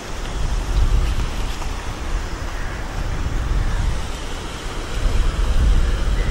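Steady outdoor noise of wind buffeting the microphone, a heavy uneven low rumble, over the rush of river water spilling across a weir.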